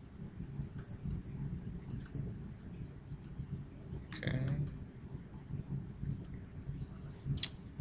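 Scattered clicks of a computer mouse and keyboard keys during document editing, over a steady low hum.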